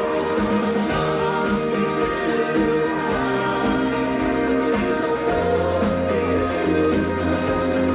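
Live band playing a song: electric guitars, bass and drums, with several singers singing together.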